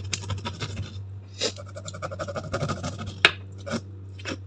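Kitchen knife scoring the skin of a large whole raw fish: scraping cuts and a few sharp clicks of the blade, over a steady low hum.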